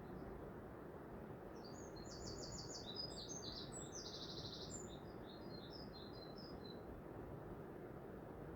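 A small bird singing a varied song of quick high chirps and rapid trills for several seconds, over a steady low hiss.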